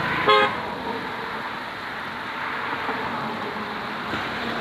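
Steady rush of fast-flowing muddy river water. A short, loud pitched sound about a third of a second in.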